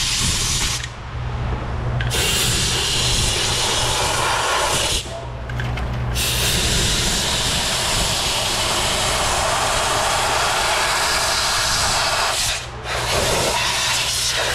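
Brake cleaner spraying at high pressure from the wand of a powered brake-clean sprayer, a loud steady hiss that stops briefly three times, about a second in, about five seconds in and near the end, over a low steady hum.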